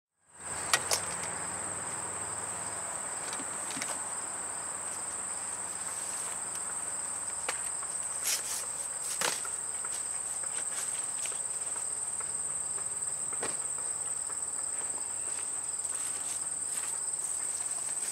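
Steady, high-pitched insect drone, one unbroken tone, with occasional light knocks and clatters as things are moved about in a car trunk, the sharpest around 8 to 9 seconds in and again near 13 seconds.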